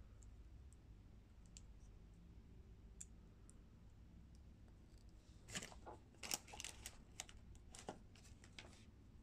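Small plastic building-block parts and their packaging being handled: a few faint ticks, then, a little past halfway, a run of sharper clicks and crackles lasting about three seconds.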